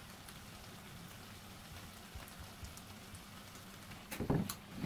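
Chicken and vegetables sizzling steadily in a hot frying pan, with small crackles, as oyster sauce is poured in. About four seconds in, a louder clatter of knocks as the wooden spatula stirs in the pan.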